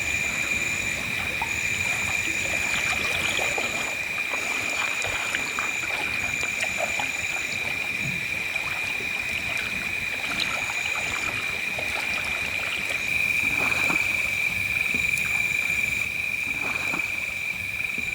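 Evening animal chorus: a steady high-pitched drone, with a second, higher call that comes and goes in stretches of about a second, and scattered small clicks. It grows a little louder about two thirds of the way through.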